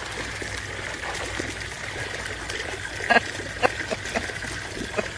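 Steady trickle of water, with a few short sharp sounds between about three and five seconds in.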